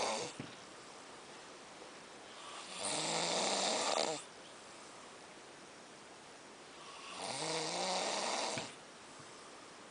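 A man snoring in a slow, regular rhythm: two long snores, one about three seconds in and one about seven seconds in, each lasting over a second, with quieter breathing between.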